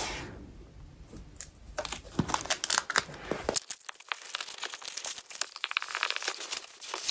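Clear plastic wrap crinkling and crackling in many quick crackles as it is pulled off a rolled diamond painting canvas and the canvas is unrolled.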